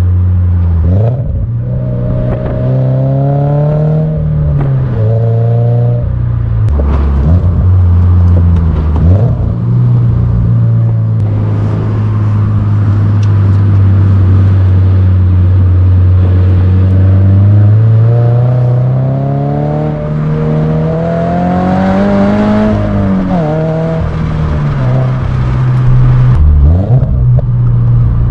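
2022 Subaru BRZ's 2.4-litre flat-four engine running through an HKS Spec L cat-back exhaust while the car accelerates through the gears: the pitch climbs on each pull and drops back at each upshift. It holds a steady cruise for several seconds in the middle, then climbs again and falls away near the end.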